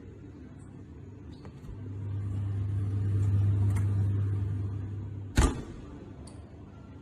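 A low, steady machine hum that swells and fades over about three and a half seconds, then stops with a sharp click.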